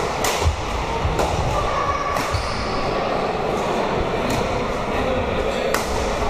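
Badminton rackets hitting shuttlecocks: about half a dozen sharp cracks at irregular intervals, ringing in a large echoing sports hall over the steady din of several games being played at once.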